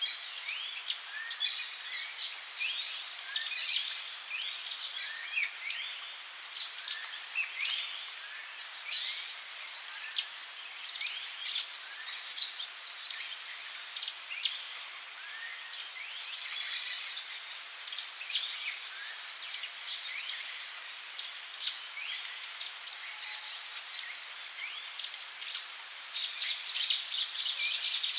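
Forest ambience: a steady high-pitched insect drone with many birds chirping and whistling over it in quick, short calls.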